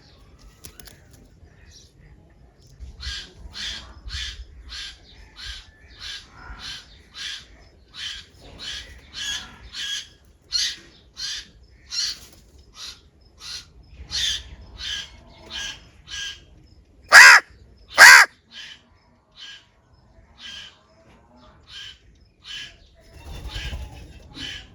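Crows cawing: a steady run of short harsh calls about twice a second, with two much louder caws close together about two-thirds of the way through.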